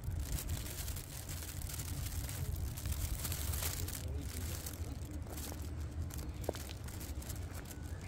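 Wind rumbling steadily on the microphone, with light rustling.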